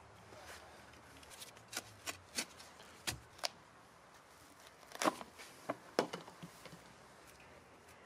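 Scattered light clicks and crackles of a thin black plastic plant pot being squeezed and pulled off a grass plant's root ball, about a dozen sharp ticks, loudest about five and six seconds in.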